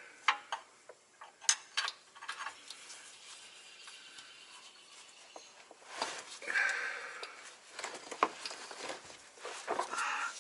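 Metal tools clinking and tapping against steel in a few sharp, separate knocks, then a rougher scraping, rasping noise from about six seconds in that comes again near the end.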